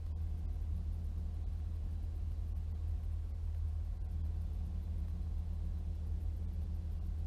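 EMD GP40 diesel locomotive idling: a steady low rumble.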